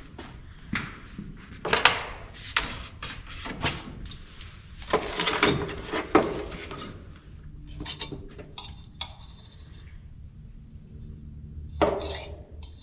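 Irregular knocks, clunks and scrapes of hands-on work with tools and materials on a plywood floor among wooden wall framing, busiest in the first six seconds, then quieter with one more knock near the end.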